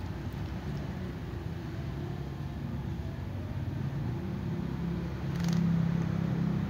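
A motor engine running off to one side: a steady low hum that grows louder about four and a half seconds in.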